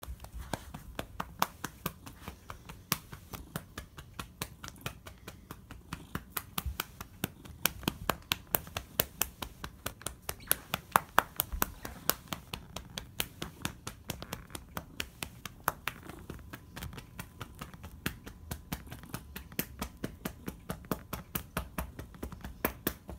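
A hand patting a calico cat's rump: quick, sharp slaps, about three a second, repeating steadily.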